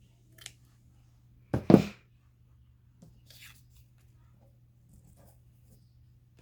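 Paper and craft materials being handled on a work table: faint rustles and light taps, with one brief, loud burst of rustling about a second and a half in.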